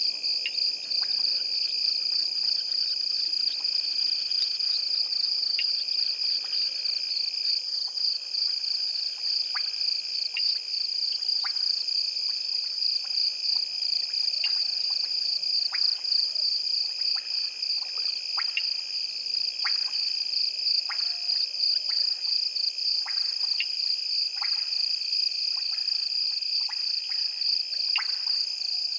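Night chorus of frogs and insects: a steady, fast-pulsing high trill over many short, sharp frog calls, which come more often in the second half.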